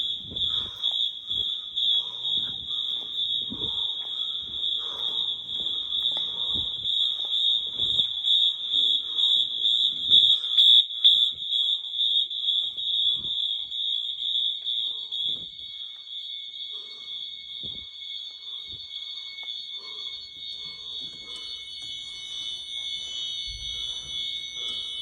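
Wheelock MT fire alarm horns sounding in alarm during a system test: a loud, steady high-pitched tone, with further horn tones at other pitches joining near the end.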